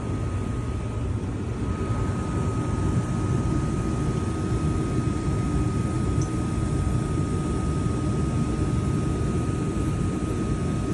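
Furnace running: a steady low rumble with a faint, constant high whine over it.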